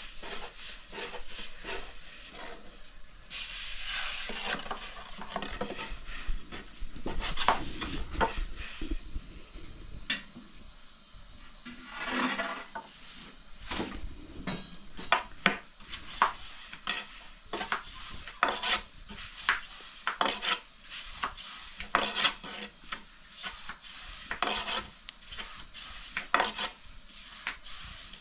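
Irregular knocks, clinks and scraping of kitchen utensils and pans on hard surfaces during bread-making, with sharper clinks scattered through.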